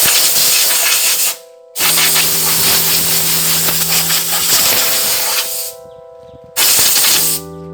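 Spray painting: three bursts of loud, even hiss, a short one, then a long one of about four seconds, then another short one near the end.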